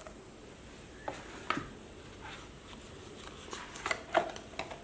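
Hands handling a cardboard tarot box and paper guidebook: a few soft taps and rustles, a couple about a second in and a busier cluster near the end.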